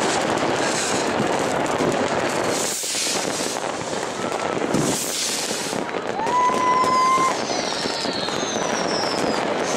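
Many New Year's fireworks and firecrackers going off at once, a dense, continuous crackle of bangs. About six seconds in, a whistle rises and holds steady for about a second, and several short falling whistles follow near the end.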